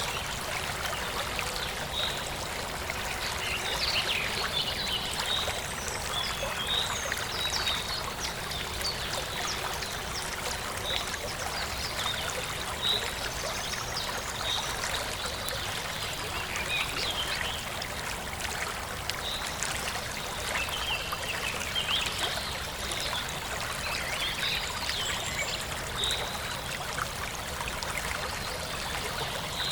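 Forest stream running and trickling steadily over stones, with small birds chirping at intervals throughout.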